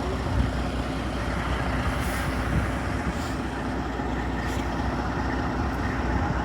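Heavy vehicle's engine running steadily, with a few short hisses about two, three and four and a half seconds in.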